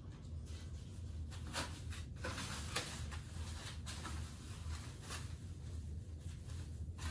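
Plastic packaging rustling and crinkling in short bursts as a wrapped bicycle wheel is handled over its cardboard box and its plastic sleeve is pulled off, over a low steady hum.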